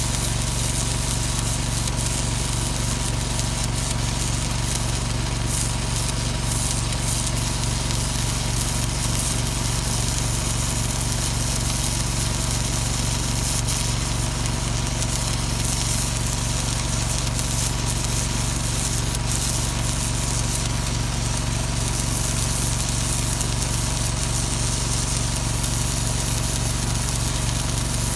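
Electric welding arc crackling and hissing steadily while hard-facing a steel skid steer bucket, over a steady low electrical hum.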